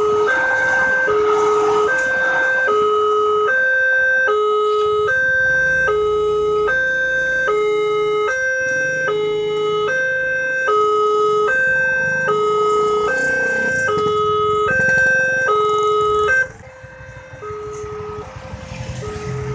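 Railway level-crossing warning siren, a Multec TC siren module sounding through a horn loudspeaker. It plays a two-tone hi-lo pattern, each tone held about two-thirds of a second. About sixteen seconds in it drops sharply in volume and goes on faintly, with a low rumble rising near the end.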